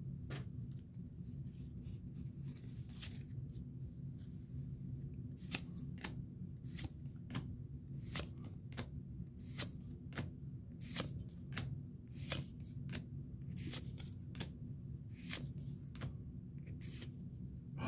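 Pokémon trading cards being flipped through by hand, each card slid off the stack with a short swish. The swishes are sparse at first, then come about one or two a second from about five seconds in.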